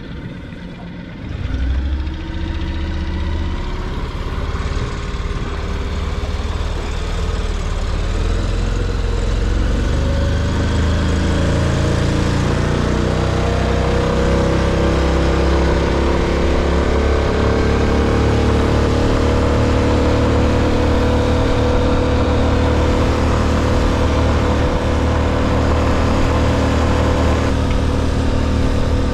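Outboard motor on a small aluminium boat opening up about a second and a half in, its pitch rising for roughly ten seconds as the boat gets up to speed, then running steadily at cruising speed.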